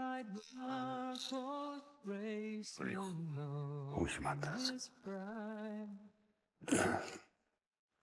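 A man singing a slow tune alone, unaccompanied, in long held notes that step down in pitch. Two short rustles come near the end.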